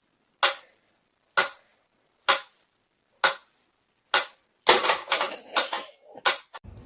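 Sharp knocks, evenly spaced at about one a second, five in a row, then about two seconds of rapid clattering with a thin high tone over it that stops suddenly.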